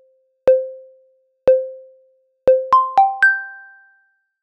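Short musical logo jingle: a single note struck three times about a second apart, then a quick run of three higher notes, each ringing out and fading.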